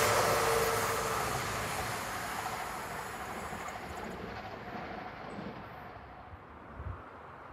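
A CrossCountry Voyager diesel train running away from the platform at speed, its rail noise and rumble fading steadily as it draws off into the distance, with a brief low thump near the end.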